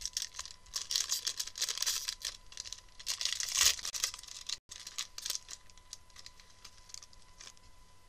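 Trading-card pack wrapper crinkling and being torn open by hand in quick crackling bursts, loudest about three and a half seconds in, then dying down to faint handling.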